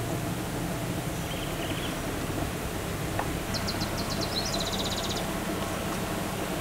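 Low steady hum of an idling vehicle engine, with birds calling over it: a short call about a second and a half in, and a fast clicking trill a little past halfway.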